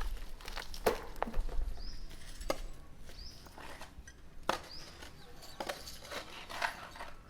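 Irregular knocks, clatters and scrapes of construction rubble and debris being picked up and moved, with a few short high bird chirps among them.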